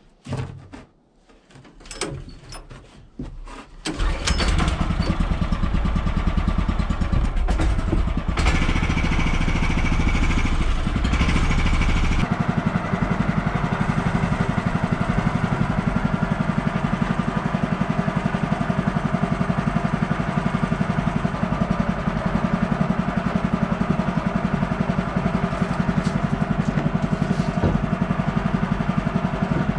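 Woodland Mills HM130 portable sawmill's gasoline engine starting after a few short knocks, catching about four seconds in and then running steadily. An added high whine sounds for a few seconds soon after it starts.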